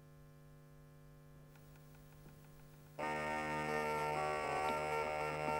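Faint mains hum with a short run of soft, even ticks, then instrumental music comes in suddenly about three seconds in: several sustained tones held together, with light ticking over them.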